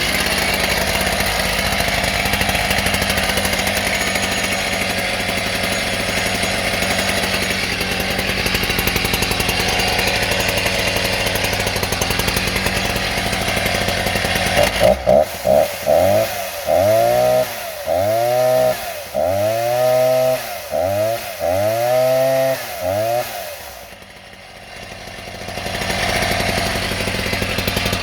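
Stihl 08S 55cc two-stroke chainsaw running warm without choke, first idling steadily. About halfway through, the throttle is blipped about eight times, each rev rising and falling. Near the end the engine drops quieter for a couple of seconds, then picks up again.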